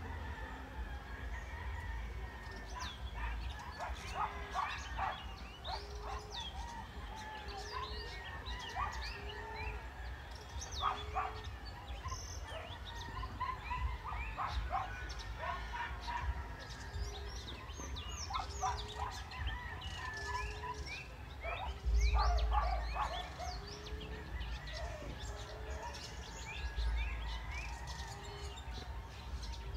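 Low, soft cooing of an emerald dove, one short hoot about every second and a half, with many small birds chirping and trilling over it. A brief low rumble comes past the middle.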